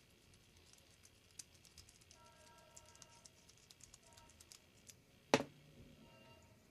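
Small parts and tools being handled while fitting a folding stock adapter to a rifle: a scatter of light clicks and taps, then one sharp, much louder clack a little over five seconds in.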